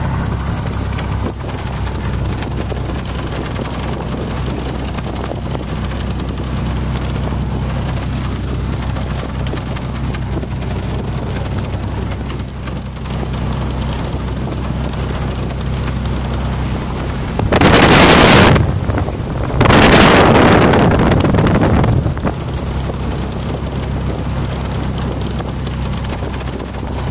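Small plane's piston engine running steadily, heard inside the cabin, with two loud bursts of rushing noise, the second longer, about two-thirds of the way through.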